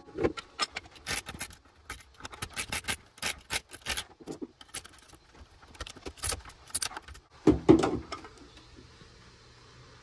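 Small metal tool scraping and clicking between the coils of a Buderus GB142 boiler's heat exchanger, picking at the hard deposits that plug it: a run of sharp, irregular clicks and scrapes, with a louder knock about three quarters of the way through.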